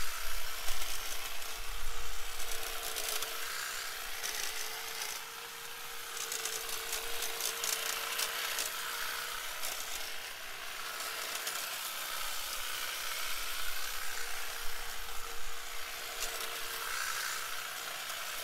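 DeWalt 20V Max cordless hedge trimmer (DCHT820B) running steadily with a constant electric hum, its reciprocating blades clipping through shrub branches with a stream of crackling snaps.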